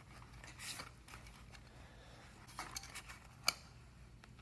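Electric scooter tire being worked off its wheel rim: faint, scattered scraping and rubbing of rubber against the rim, with one sharp click about three and a half seconds in.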